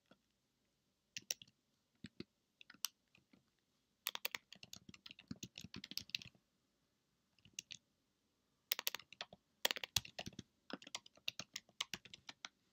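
Faint typing on a computer keyboard: a few separate key clicks at first, then quick runs of keystrokes about four seconds in and again through the last four seconds.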